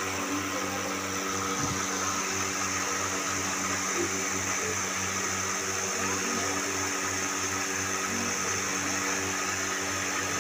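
A steady low machine hum, like an engine running at idle, with a regular throb in its lowest notes.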